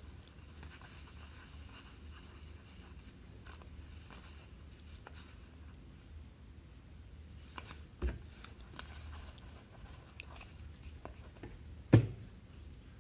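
Baseball trading cards being shuffled through by hand, with faint paper rustling and small clicks. There is a soft knock about eight seconds in and a louder thump near the end as the stack of cards is set down on the table.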